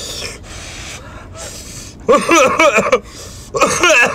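A man eating hot noodles: breathy slurping noises for about two seconds, then two short voiced exclamations about two and three and a half seconds in.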